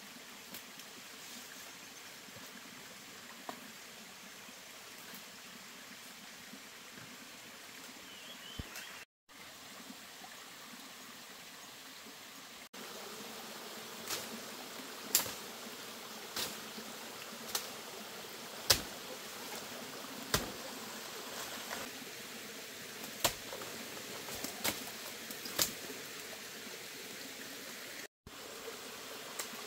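Steady rush of a small forest stream with insects, and from about halfway a series of a dozen or so sharp snaps and cracks of plant stems and branches breaking as a man forces his way through undergrowth.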